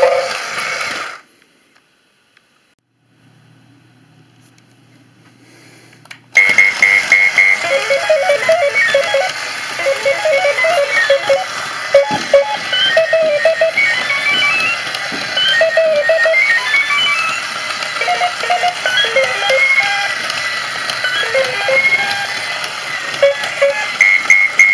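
Battery-powered toy robot playing its electronic sound effects: rapid, high-pitched bleeps that hop about in pitch like a jumbled chiptune. The bleeps cut off about a second in, leaving only a faint motor hum, then start again about six seconds in and run on.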